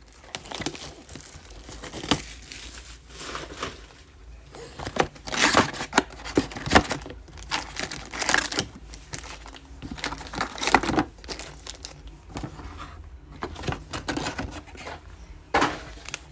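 Trading-card box and pack wrappers being torn open and crinkled by hand, in irregular crackly bursts.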